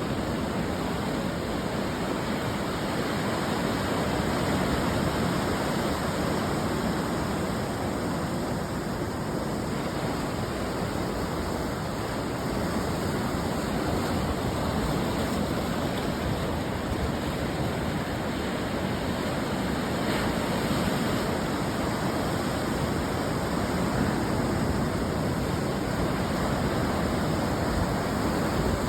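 Ocean surf breaking and washing on the shore: a continuous wash of white noise that swells and eases gently, with no single crash standing out.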